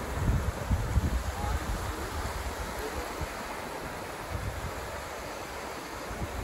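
Sea surf washing over a shallow sandy beach, a steady rush of small breaking waves, with wind buffeting the microphone in gusts that are strongest in the first two seconds.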